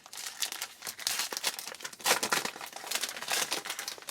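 A foil trading-card pack wrapper crinkling and tearing as it is ripped open, in a dense run of crackles that peaks about two seconds in.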